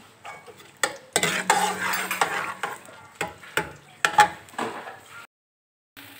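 Steel ladle stirring and scraping sliced onions in hot oil in a metal pot, in irregular strokes with knocks against the pot, over a light sizzle as the onions begin to fry. The sound drops out for about half a second near the end.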